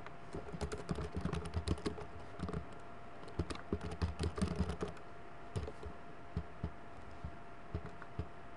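Typing on a computer keyboard: quick runs of keystrokes for about the first five seconds, then slower, scattered key presses, over a faint steady hum.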